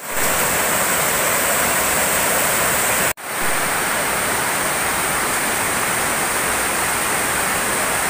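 Loud steady rush of water pouring over a low concrete weir. About three seconds in, the sound cuts out for an instant and then resumes as the same steady rush of river water.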